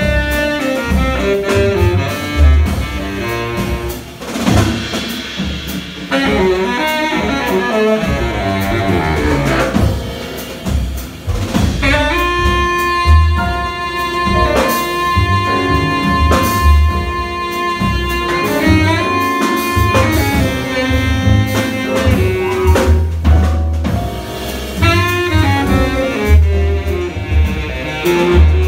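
Live jazz quartet playing: baritone saxophone over piano, double bass and drum kit. A long held note runs through the middle for about eight seconds.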